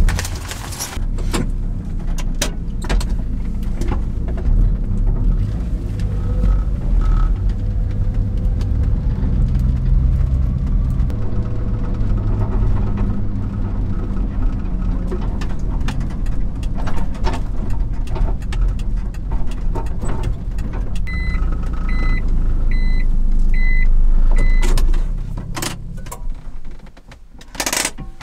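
Light truck's engine and road noise heard from inside the cab while driving, a steady low rumble that swells and eases. About two-thirds through come five short electronic beeps a little under a second apart. Near the end the engine note falls as the truck slows, and a few sharp knocks follow.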